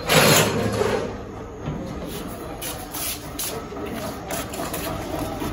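A metal gate being unbolted and opened: a loud scraping rush in the first second, followed by lighter clicks and footsteps.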